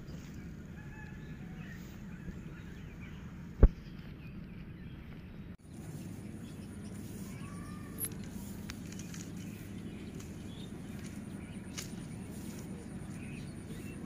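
Outdoor rural ambience: a steady low background hum with faint bird chirps, and one sharp, loud knock about a quarter of the way through.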